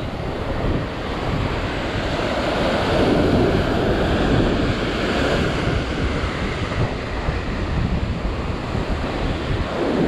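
Heavy ocean surf breaking and washing over sea rocks, with wind buffeting the microphone; the wash swells about three seconds in.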